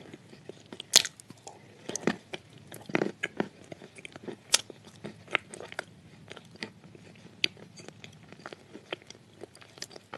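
Close-up biting and chewing of soft sand clay with clay paste: irregular crunches and small sticky clicks, the loudest crunch about a second in.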